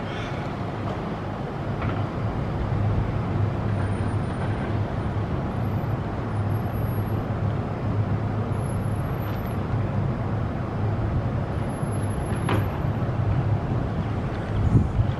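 Steady road traffic noise from a busy road: a continuous low rumble of passing cars and heavy vehicles, with a couple of short knocks near the end.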